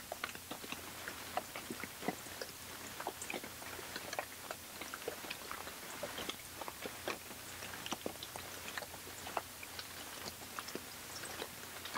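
Irregular crackling clicks, several a second, over a steady hiss and a low hum.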